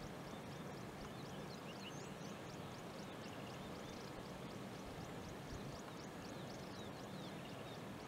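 Faint outdoor ambience: a short high chirp repeated about three times a second over a steady background hiss. No eagle call is heard.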